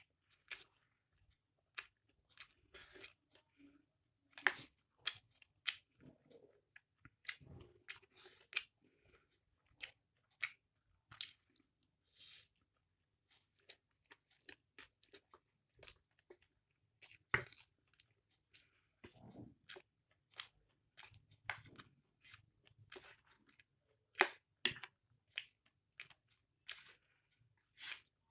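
Close-miked mouth sounds of someone eating mixed chow mein: wet chewing with many short, sharp clicks and crunches at irregular intervals.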